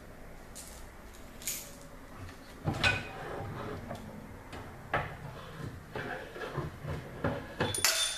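Metal clunks, knocks and scraping as a direct-drive washer's motor and transmission assembly is worked loose and slid out from under the tub, with a sharper metallic clatter near the end.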